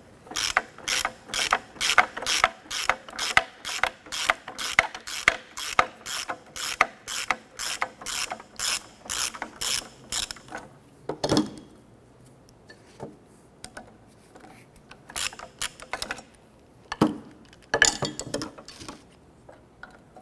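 Hand ratchet with a Torx bit clicking in a steady rhythm, about two strokes a second for some ten seconds, as a T30 Torx screw on the rear brake backing plate is turned out; after that, a few scattered clicks and knocks.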